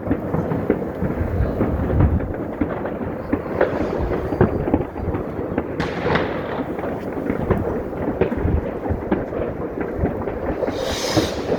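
New Year's fireworks and firecrackers going off all across a city: a dense, continuous crackle of many overlapping bangs and pops with low booms, some sharp reports standing out above the rest.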